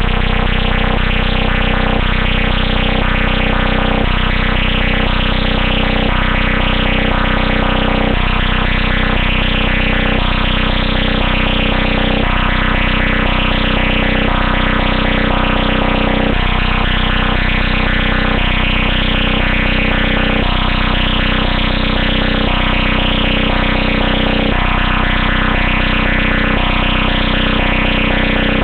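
Loud synthesized electronic music generated by a homemade C++ program: a dense, buzzy repeating loop whose notes shift about every two seconds, starting suddenly out of silence.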